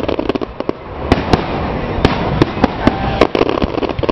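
Aerial fireworks display: shells bursting in a rapid, irregular string of loud bangs and pops, several a second, over a continuous crackling rumble.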